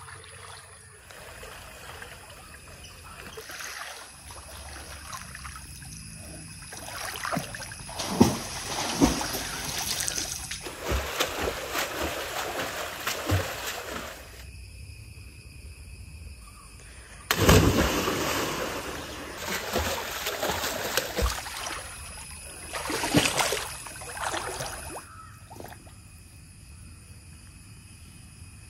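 Water splashing and sloshing in a pond as a swimmer moves through it, in several bouts of a few seconds each. The loudest starts suddenly a little past halfway.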